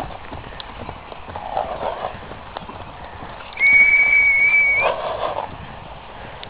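A cantering horse's hooves thud faintly on grass. About three and a half seconds in, a person gives one steady, high whistle lasting just over a second, rising a little at the end, to drive the horse on.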